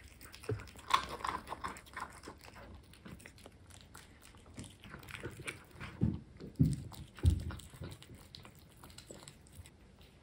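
Kittens chewing and licking pieces of dorado fish from stainless steel bowls: soft wet chewing with many small clicks, and a few dull knocks about six to seven seconds in.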